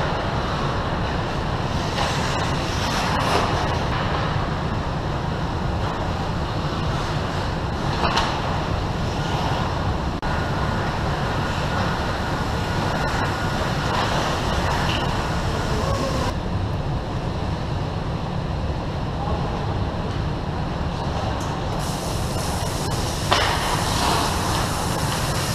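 Ice rink during hockey play: a steady low rumble with skates scraping the ice, and a sharp knock of stick or puck about eight seconds in and a louder one near the end.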